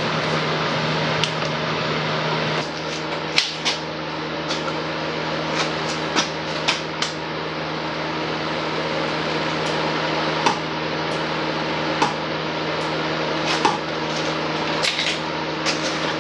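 Irregular sharp clicks and light knocks, a dozen or so spread unevenly, over a steady hum and hiss.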